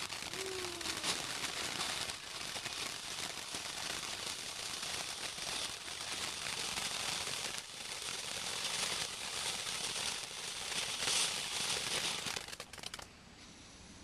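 Firework crackling: a dense, steady run of tiny pops that stops abruptly about a second before the end.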